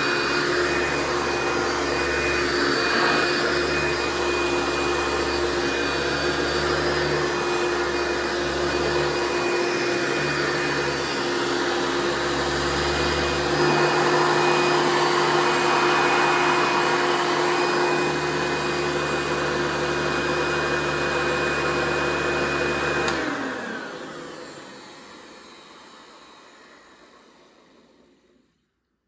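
2000 Hoover Runabout Ultra vacuum cleaner running steadily with a motor whine, then switched off about 23 seconds in and spinning down to silence over several seconds.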